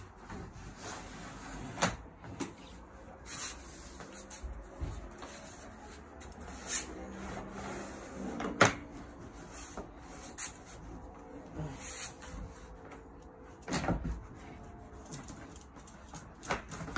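Irregular knocks and clicks of plastic shed roof panels and rim being handled and pushed into place, with the loudest knock about halfway through.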